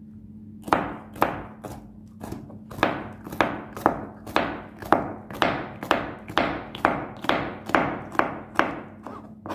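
Kitchen knife slicing raw bitter gourd on a plastic cutting board: a steady run of sharp knocks of the blade hitting the board, about two a second.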